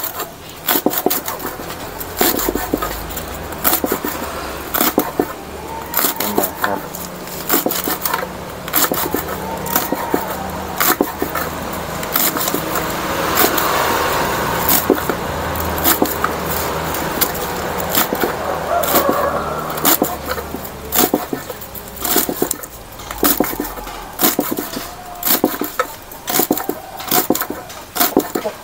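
Kitchen knife chopping papaya leaves on a wooden block: quick, irregular blade strikes on the wood, several a second. A low steady hum sits underneath, louder through the middle.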